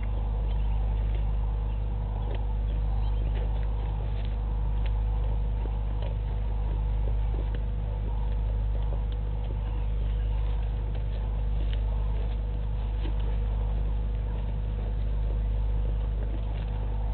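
A steady low electrical hum that swells and fades gently every couple of seconds, with faint scattered ticks and crackles over it.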